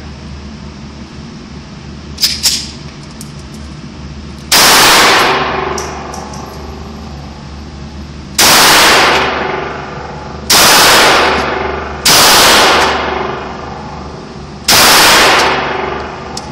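Five pistol shots fired at an uneven pace, the first about four seconds in and the last near the end. Each crack rings out in a long echo off the concrete walls of an indoor range. A few light metallic clicks come about two seconds in, before the first shot.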